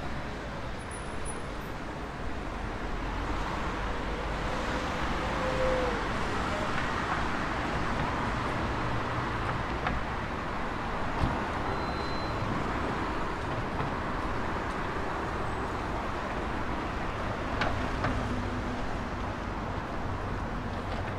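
Road traffic on a city street: cars passing with a steady tyre and engine hiss, one swelling past about five seconds in. A sharp knock sounds near the middle and another later on.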